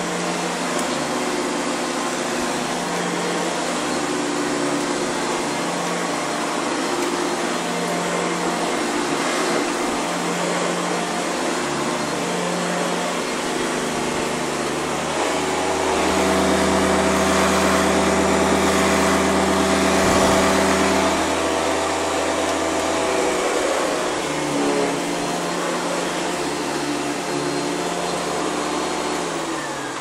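Hoover Convertible upright vacuum cleaner running over carpet, its motor and beater bar making a steady drone. For about five seconds past the middle the hum steps up in pitch and grows louder, then settles back, and the sound drops off near the end.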